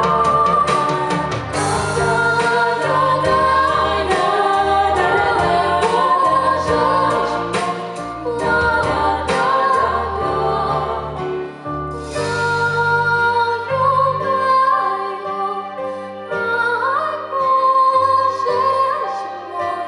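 Female vocal trio singing with musical accompaniment.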